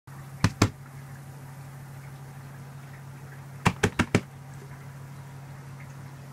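Steady low hum with sharp knocks over it: two close together near the start, then four in quick succession about three and a half seconds in.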